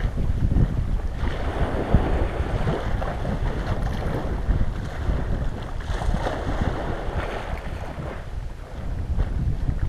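Wind blowing on the microphone over sea waves washing against shore ice, the wash swelling and easing.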